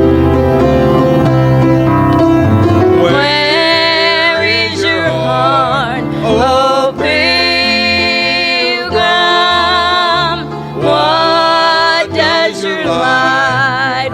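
Music: singing in long held phrases with vibrato over instrumental accompaniment, the voice coming in about three seconds in after a stretch of accompaniment alone.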